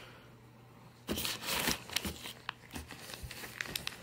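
Water-filled plastic bags crinkling and crackling as they are handled, starting about a second in.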